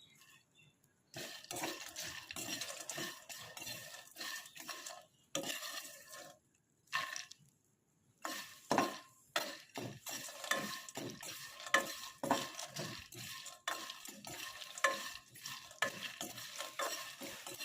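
Kabok (wild almond) seeds being dry-roasted in a pan over low heat, stirred and scraped round with a spatula in quick repeated strokes, with a couple of short pauses midway.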